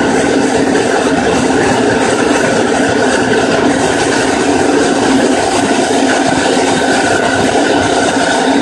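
Tokyo Metro 9000 series renewed subway train running, heard from inside the car: a steady rumble of wheels on rail with a steady hum, the noise holding level with no rise or fall in pitch.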